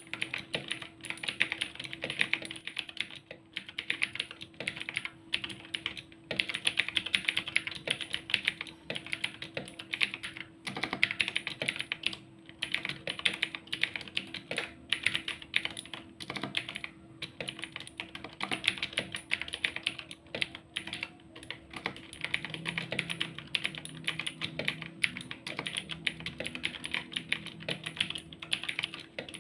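Fast, continuous typing on an Armageddon MKA-61C mechanical keyboard: rapid key clicks and clacks in runs of a few seconds, broken by short pauses.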